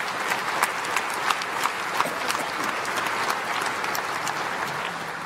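Large audience applauding steadily, a dense run of hand claps that begins to thin out near the end.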